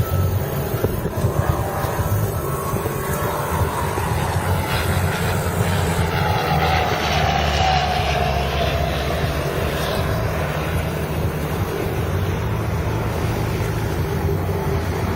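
Helicopter flying, its rotor giving a steady low beating, with an engine whine that falls in pitch about halfway through as it passes.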